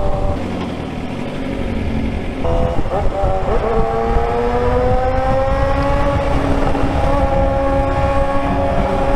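Suzuki GSX-R600's inline-four engine heard from the rider's seat while riding. First come about two seconds of wind and road noise. Then the engine pulls steadily through a road tunnel, its pitch climbing slowly as the bike accelerates.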